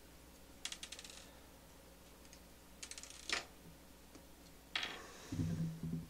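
Small metal parts of an XLR cable connector clicking and clinking as it is taken apart by hand, in three short bursts of rapid clicks. Near the end come a few low, dull knocks from handling.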